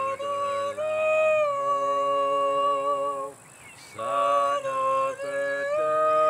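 Music: a singing voice holding long, steady notes that step between pitches, with a brief gap about three seconds in.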